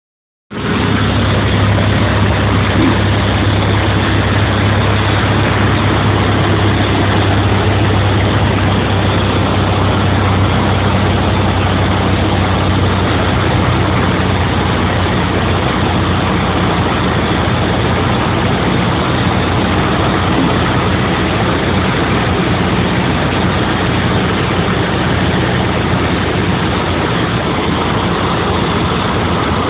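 Thorpedo light sport aircraft's piston engine and propeller running steadily at cruise or approach power, heard inside the cockpit as a loud, even drone with a constant low hum.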